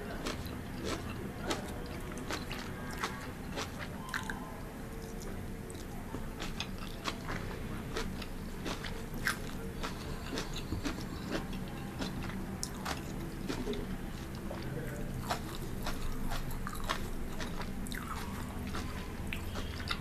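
Close-miked eating of pan-fried noodles and stir-fried vegetables: chewing and crunching bites with many short, sharp mouth clicks, over a steady low hum.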